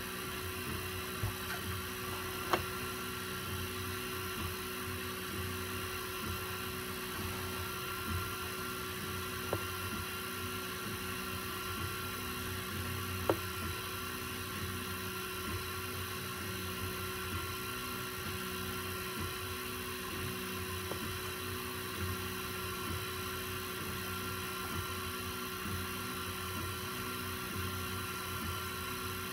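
FDM 3D printer printing a test piece: a steady hum from its fans, with the stepper motors buzzing through short, evenly repeated moves of the print head, and a couple of faint clicks.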